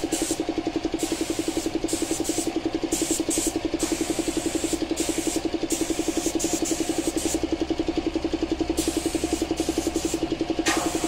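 Piston air compressor running with a rapid, steady pulse, feeding a spray-paint gun that hisses in on-and-off bursts as its trigger is pulled and released.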